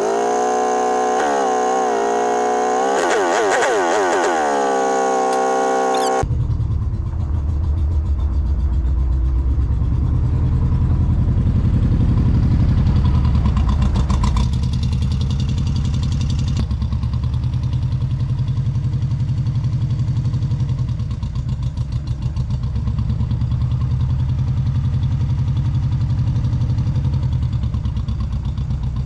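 A vehicle engine revving high, its pitch sliding down about four seconds in; then, after a sudden cut some six seconds in, an engine running at low speed with a steady, pulsing rumble.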